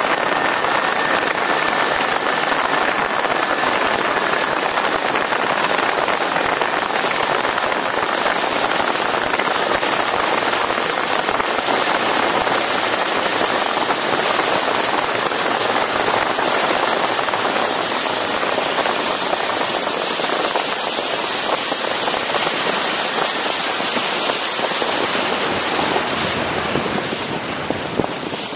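High-speed rigid inflatable boat running at speed: a loud, steady rush of wind and churning spray, with a faint steady whine in the first few seconds. The rush eases slightly near the end as the wake settles.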